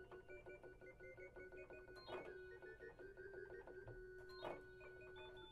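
Quiet electronic keyboard music: a run of short notes stepping up and down over one held low note, with two sharper struck sounds about two and four and a half seconds in.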